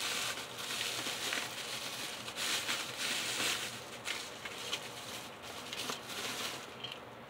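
Plastic bubble wrap crinkling and rustling as it is handled and pulled open by hand, with many sharp little crackles. It is somewhat quieter near the end.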